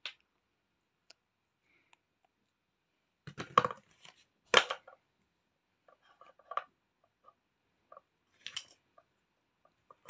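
Wooden toy food pieces being handled on a wooden cutting board: a few short clacks and rasps, the loudest cluster a few seconds in, then scattered lighter taps.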